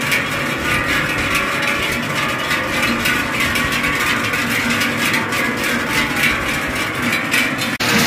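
A herd of cows' bells clanging together in a dense, continuous jangle as the cattle walk down the road, with an abrupt cut near the end.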